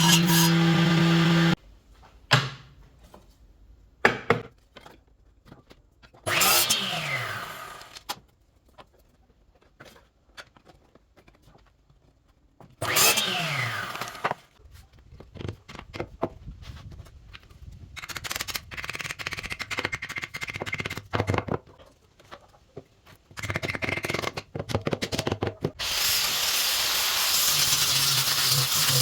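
Woodworking shop sounds: a power tool runs and cuts off suddenly about a second and a half in, followed by scattered knocks and scraping on wood, two short tool bursts that fall in pitch, and a steady hissing noise near the end.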